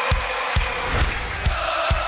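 Theme music with a steady, heavy beat of a little over two beats a second.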